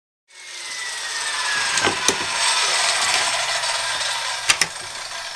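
Corded circular saw running its blade through wood as it is pushed along a dado jig. The saw sound starts abruptly and its whine falls slightly in pitch over the first two seconds. There are a few sharp knocks about two seconds in and again near the end.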